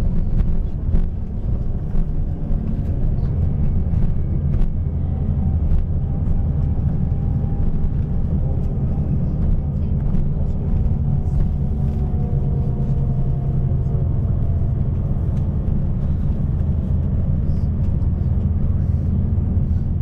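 Bus driving, its engine and road noise making a steady low rumble, with small rattles and clicks and a faint whine that shifts in pitch around the middle.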